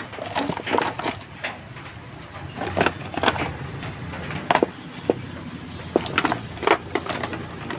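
Hands rummaging through a box of small electronic parts and tools: irregular clicks, knocks and clatter of objects being moved and knocked together.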